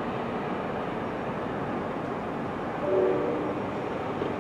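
NJ Transit GP40PH-2B diesel locomotive running with a steady rumble. About three seconds in it gives one short horn blast, a chord of several tones lasting under a second.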